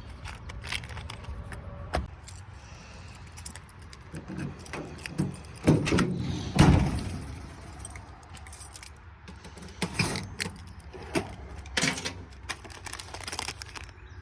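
Small metal parts jingling and clinking, with scattered clicks and knocks, as parts and tools are handled and rummaged through.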